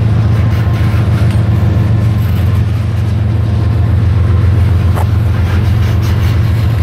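Freight train of open-top hopper cars rolling past at close range: a steady rumble and clatter of steel wheels on the rails, with a single sharp click about five seconds in.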